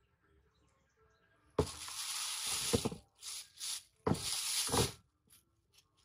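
Thin plastic bag crinkling and rustling as it is handled, in several bursts over about three seconds.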